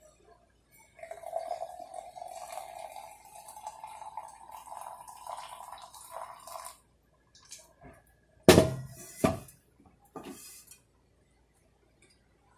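Hot water poured from a gooseneck kettle into an AeroPress chamber onto coffee grounds: a steady trickling pour whose pitch rises slowly as the chamber fills, stopping just under seven seconds in. A couple of seconds later the kettle is set down with two loud clunks.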